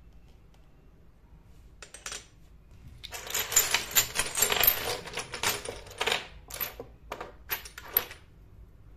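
Miniature ceramic dishes clinking against each other as a hand rummages through a pile of them: one clink about two seconds in, a dense rattling clatter for about three seconds, then a few separate clinks as single pieces are picked up or set down.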